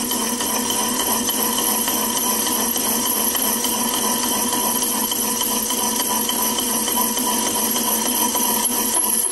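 Metal lathe running, its cutting tool turning a spinning round metal workpiece: a steady machining sound with several steady tones.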